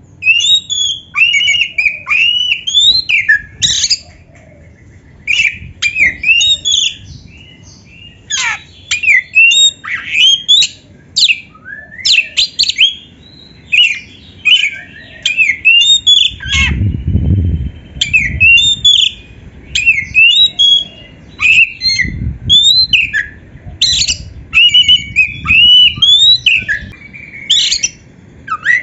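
Oriental magpie-robin (kacer) singing: quick runs of rising and falling whistled and chattering notes in short bursts with brief pauses. A low rumble comes in about two-thirds of the way through.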